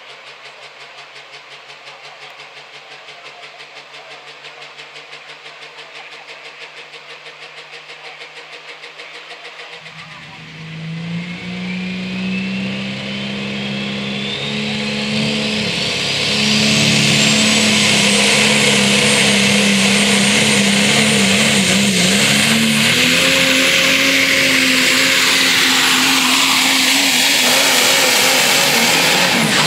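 Super stock diesel pickup engine running low for about ten seconds, then going to full throttle to pull the sled. A turbocharger whistle climbs steadily in pitch to a high, held scream over the loud engine, and the engine drops off right at the end.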